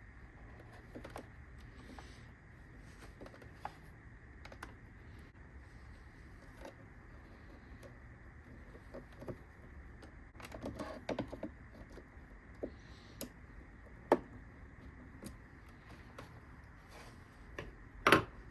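Scattered small clicks and taps of plastic and metal parts being handled while working inside a coffee machine, with a short run of rustling taps partway through and two sharp clicks, the louder one near the end.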